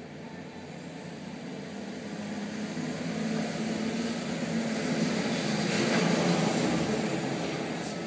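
Container truck hauling a shipping container, its diesel engine and tyres growing louder as it approaches and passes close by, peaking about six seconds in and fading near the end.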